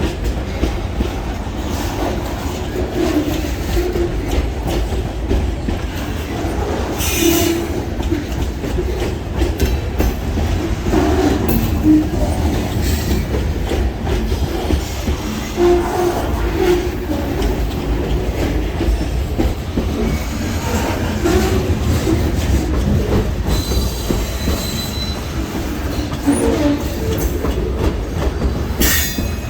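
Freight train rolling past at close range: a steady rumble of railcar wheels on the rails, with knocks over the rail joints and brief wheel squeals.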